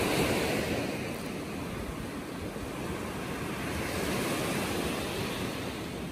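Small surf waves breaking and washing up a sandy beach, a steady wash that swells at the start and again about four seconds in, with wind rumbling on the microphone.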